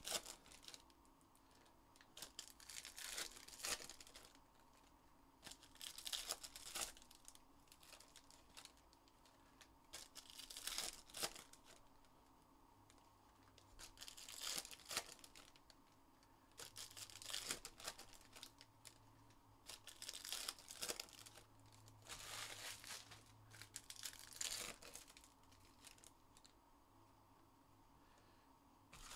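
Trading-card pack wrappers being torn open and crinkled, in faint short rustling bursts every few seconds.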